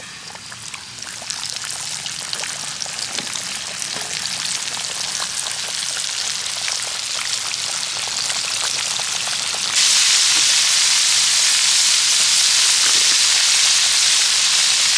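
Whole flour-dredged tilapia deep-frying in hot oil in a wok, sizzling and crackling and growing louder. About ten seconds in, the sound jumps suddenly to a louder, even sizzle.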